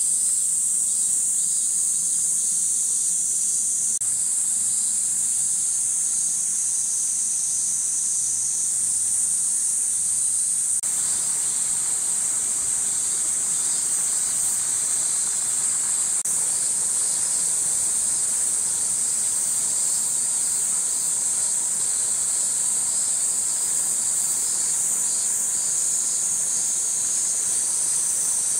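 Chorus of summer cicadas: a steady, loud, high-pitched buzz that does not let up.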